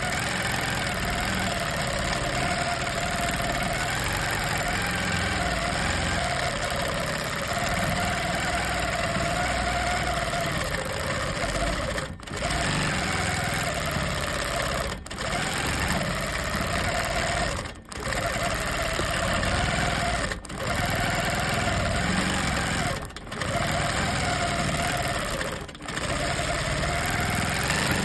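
Long-arm quilting machine stitching free-motion: the motor and needle run steadily with a wavering whine. In the second half the sound briefly drops out six times, about every two to three seconds.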